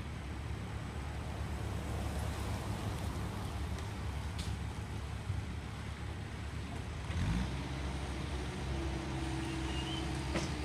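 Low, steady rumble of vehicle engines. A pickup truck drives past about six seconds in, and about seven seconds in a steadier engine drone with a pitched hum comes in.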